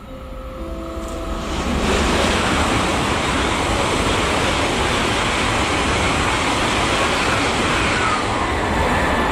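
ICE high-speed train running through the station at speed: a rush of wheel and air noise that builds over the first two seconds and then holds steady as the long train passes.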